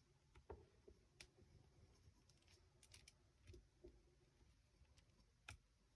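Near silence with a handful of faint, scattered clicks and light taps, the clearest about half a second in and again near the end.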